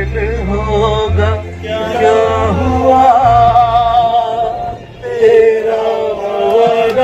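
A man singing a slow melody into a handheld microphone, with long held, wavering notes and short breaks between phrases. A low steady hum runs underneath.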